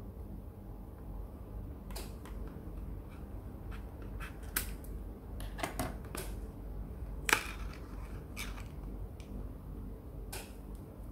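Plastic seal wrap being torn and peeled off a cardboard Epson 003 ink bottle box, and the box handled: scattered crinkles and sharp clicks, the sharpest about seven seconds in, over a low steady hum.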